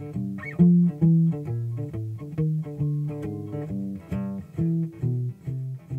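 Background music: a run of short plucked-string notes, about two a second.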